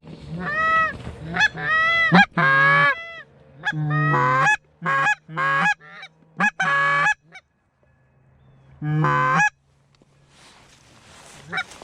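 Goose honks and clucks in quick runs, pausing for a moment, then one more honk about nine seconds in.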